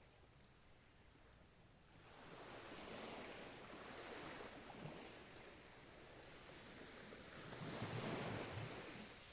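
Ocean waves washing onto a shore, in two swells: the first rising about two seconds in, the second louder one near the end.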